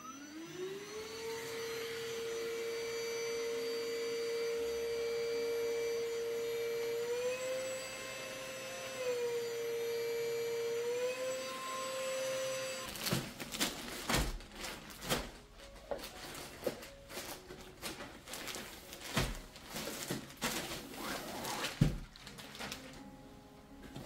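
Handheld cordless twin-cup mite-remover vacuum switched on: its motor spins up within about a second to a steady whine, the pitch stepping up and back down a little twice, then stops about halfway through. After that, irregular knocks and rustling as things are handled.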